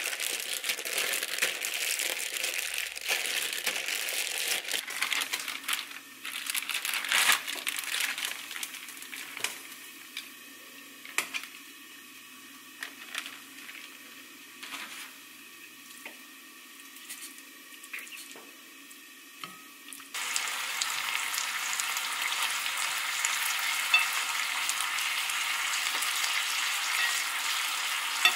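A plastic zip bag of marinated beef crinkling as it is handled, then a quieter stretch of scattered light taps and clicks. About two-thirds of the way through, a steady sizzle starts suddenly: the beef frying in a non-stick pan as chopsticks turn it.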